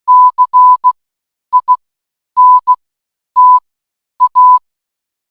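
Morse code played as a steady beep of about 1 kHz from an online text-to-Morse converter, keyed in short dots and longer dashes with gaps between letters. The pattern reads -.-. .. -. - .-, spelling C-I-N-T-A.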